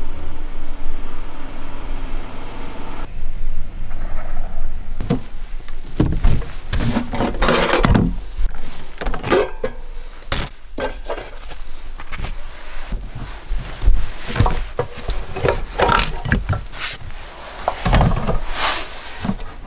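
Handling noise as camping gear is moved about: stainless steel containers knocked and clinked as they are set down on wicker baskets, with rustling between many sharp knocks. The first few seconds hold only a low steady rumble.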